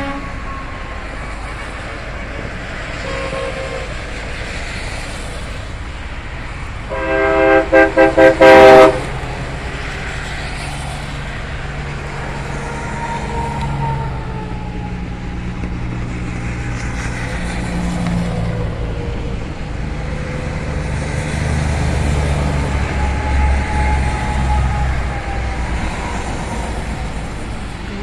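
Steady highway traffic hiss from tyres on a wet road, broken about seven seconds in by a truck air horn sounding a quick run of loud blasts for about two seconds. Later a heavy truck's low engine rumble swells and fades as it passes.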